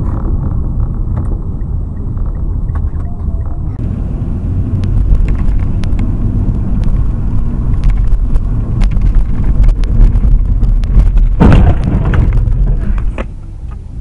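Car driving with a steady low rumble of engine and road noise, and scattered clicks. A sudden loud noise comes about eleven and a half seconds in.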